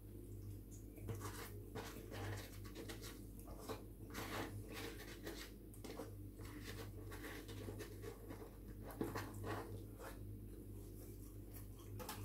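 Close-up eating sounds: chewing, lip smacking and the sucking of fingers, with fingers scraping and picking at a cardboard pizza box, as many irregular small clicks and smacks over a low steady hum.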